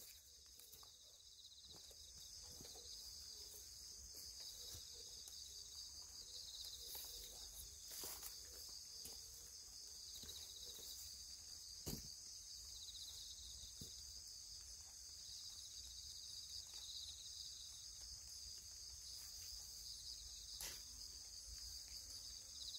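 Faint, steady chirring of insects, high-pitched and pulsing, with a single soft knock about twelve seconds in.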